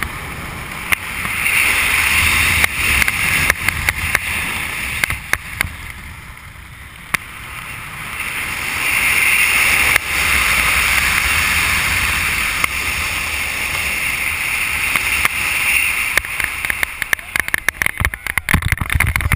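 Wind rushing over a helmet camera's microphone during a parachute canopy descent, easing for a few seconds and then swelling again. Near the end comes a quick flurry of knocks and rustles as the skydiver comes in to land.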